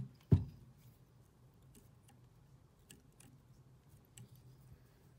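Hands handling fly-tying tools and thread at a vise: one dull thump about a third of a second in, then faint scattered small clicks and ticks over a faint steady hum.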